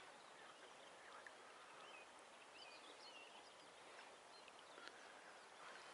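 Near silence: faint outdoor background noise, with a few faint bird chirps about two to three seconds in.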